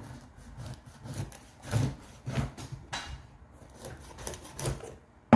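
A cacao pod's hard husk being cut and broken open: a run of irregular scraping, rasping strokes with small cracks.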